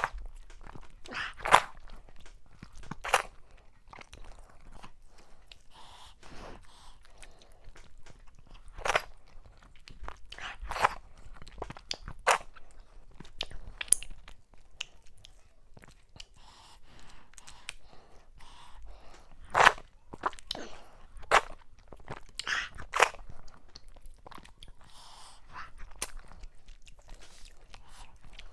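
Close-miked eating by hand: chewing and wet smacks at the lips over mouthfuls of fufu with slimy okra soup and mackerel, in irregular sharp clicks, the loudest about a second and a half in and again about twenty seconds in.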